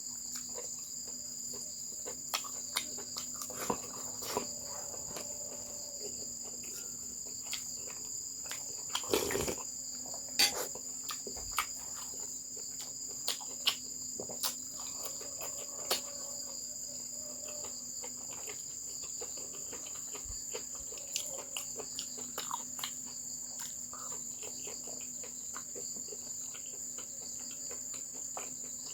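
Crickets chirring steadily, with scattered small clicks and knocks, the loudest a little past the middle.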